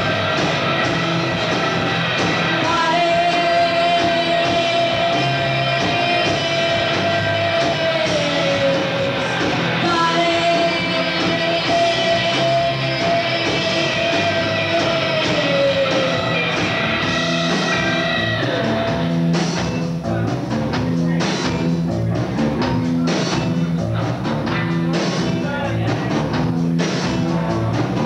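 Live rock band playing at full volume. A long held note with many overtones slides down twice, then about two-thirds of the way through the music settles into a driving, repeating bass line with drums.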